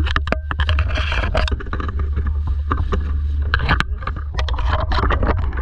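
Steady low wind rumble on the microphone, with many short knocks and clatters scattered through it.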